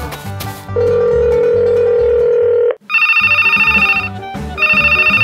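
Telephone ringing sound effect: a steady tone lasting about two seconds, then two trilling rings of about a second each, over background music with a steady beat.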